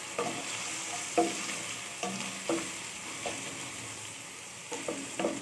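Sliced onions sizzling in oil in a metal pan, with a steady hiss. A spatula stirs and scrapes through them, making short strokes about once a second.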